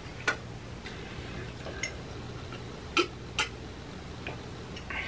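A few short clicks and knocks from a drinking glass being picked up and tipped to drink, over a low steady hum.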